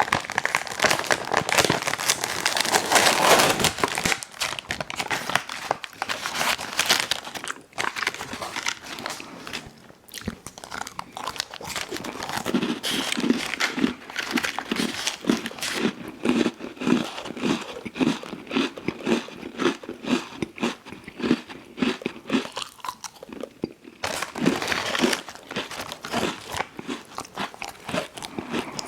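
Close-miked eating of an ice cream sandwich, with crunchy bites in the first few seconds and again near the end. Through the middle comes steady chewing at about two to three chews a second.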